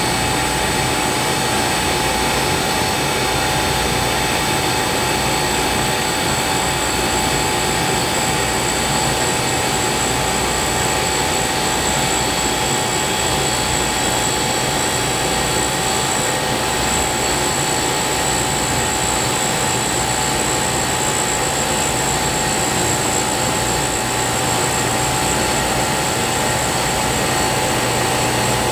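Cutter grinder running steadily, its wheel grinding a semi-fired alumina bisque ceramic rod on a final sizing pass: an even whine over a constant hiss.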